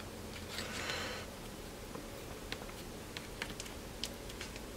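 Thin metal pry tool scraping along the edge of an Oppo A54S's glued back cover, cutting through the adhesive: a soft scrape about a second in, then scattered faint ticks and clicks.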